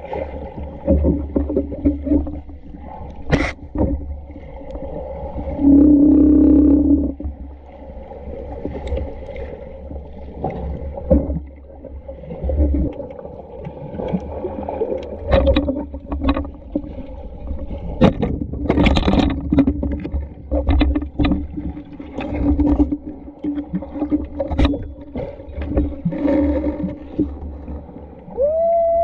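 Muffled underwater sound picked up by a submerged camera: a steady low rumble of moving water, with scattered knocks and clicks and a short loud hum about six seconds in.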